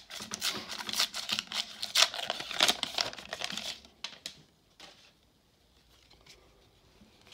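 Foil wrapper of a 1991 Upper Deck baseball card pack being torn open and crinkled for about four seconds. Then it drops to near quiet, with a few faint clicks as the cards are slid out and handled.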